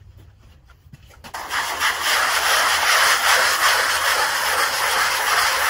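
Hand sanding block scrubbing the air-cured refractory mortar coating on the inside of a kiln lid: a steady, scratchy rubbing that starts about a second and a half in.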